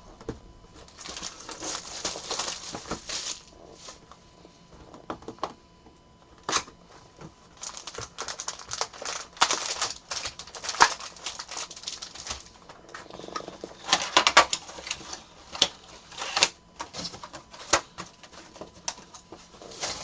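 Packaging being handled: crinkling and rustling in several bursts, with sharp clicks and taps in between.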